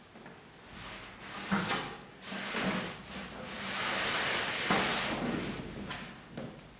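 Pleated woven cloth with black yarn and heavy, shiny metal plates rustling and scraping as it is picked up by hand and its pleats fan out, with a sharp click about one and a half seconds in and another near five seconds.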